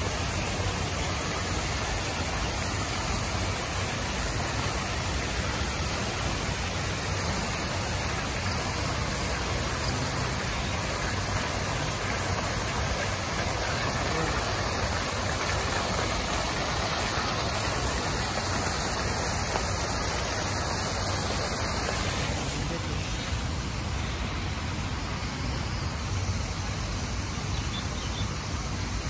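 Steady splashing of fountain jets falling back into a pond, over a low rumble. About 22 seconds in the sound drops a little and turns into a quieter steady hiss.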